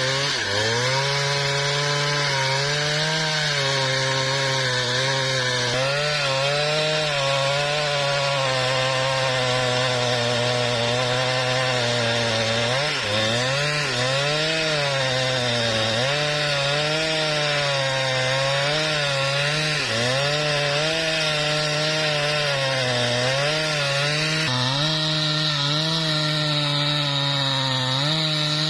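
Husqvarna 395XP two-stroke chainsaw running near full throttle while ripping lengthwise through a mahogany log. The engine pitch sags and recovers again and again as the chain bites under load.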